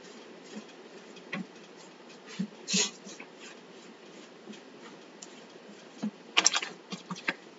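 Makeup sponge swiping and dabbing paint onto a wooden cutout: soft, scattered scuffs and taps, with a short flurry of them near the end.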